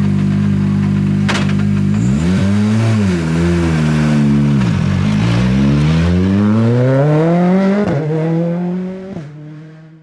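Citroën C3 Rally2 rally car's 1.6-litre turbocharged four-cylinder idling steadily, with a sharp click about a second in. It then revs and pulls away, the engine note climbing through the gears with brief drops at the shifts, and fades out near the end.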